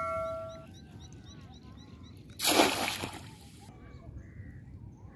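The tail of a bell-chime sound effect rings out and fades in the first moment. About two and a half seconds in, a single splash of water lasting about a second as a wire-and-net shrimp trap is plunged into the lake.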